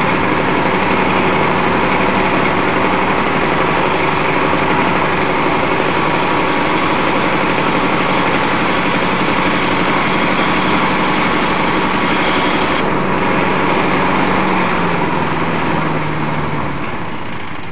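Small gasoline lawnmower engine driving the two blades of a homemade barrel-top catnip mulcher, running steadily at full speed as stalks are fed into its chute. Near the end it slows, its pitch dropping in steps, and fades.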